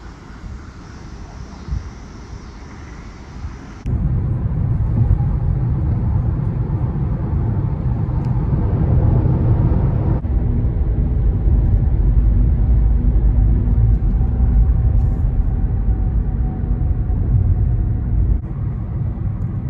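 Car on the move: a steady low road and engine rumble. It jumps suddenly much louder about four seconds in and stays heavy.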